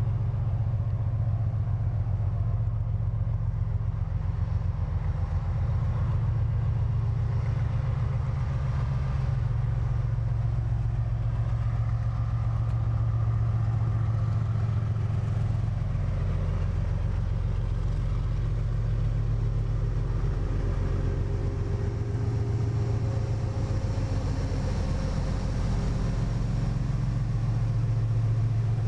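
Diesel engines of two freight locomotives at the head of a train, running with a deep, steady rumble as they approach and pass close by.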